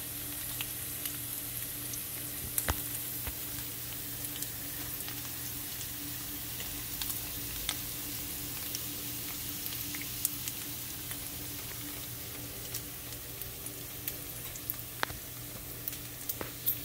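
Strips of smoked bacon frying in their rendered fat in a nonstick pan at medium heat: a steady sizzle with scattered pops and crackles as the bacon crisps.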